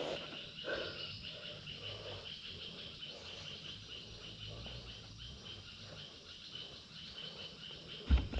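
Insects chirping in an even, rapid rhythm of about four pulses a second, with a louder knock near the end.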